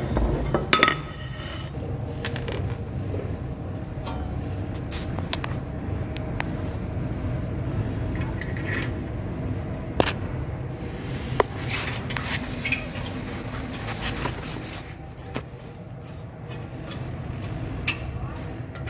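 Metal clinks, clicks and scrapes of a mounting bolt and hand tools as a new rear shock absorber is fitted to its lower bracket, over a steady low hum. A sharp click comes about halfway through, and a quick run of ringing metallic clinks near the end.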